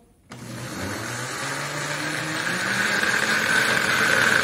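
Countertop blender switched on a moment in: its motor spins up with a climbing whine and grows louder, then runs steadily, beating eggs, vanilla and sugar.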